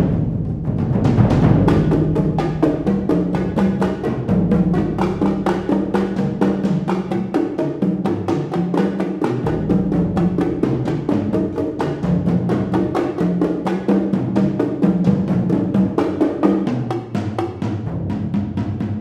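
Percussion trio playing toms, bongos, congas and concert bass drums: a dense, continuous stream of fast strokes over low drum tones.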